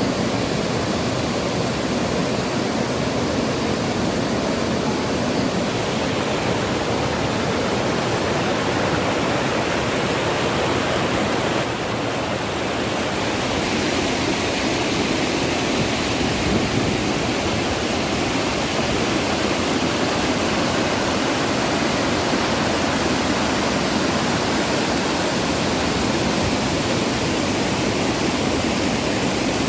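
Waterfall: a steady, even rush of falling water, dipping slightly for a moment partway through.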